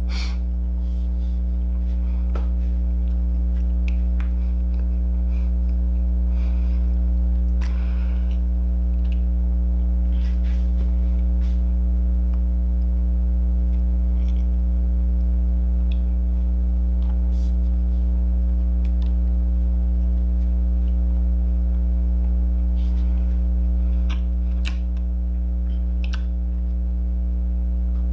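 Loud steady electrical mains hum with several higher steady tones stacked above it, under faint scattered clicks and soft crunches of gingerbread being chewed.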